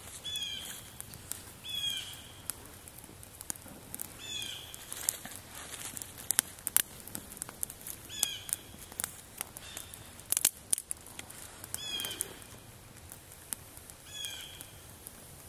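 Small twig fire of damp wood crackling, with sharp pops scattered through, the loudest of them in the middle. A bird calls in the background, about six short calls a few seconds apart.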